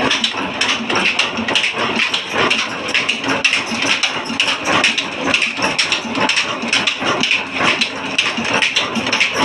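Old horizontal stationary diesel engine running steadily, its valve gear and moving parts clattering in a fast, even stream of knocks.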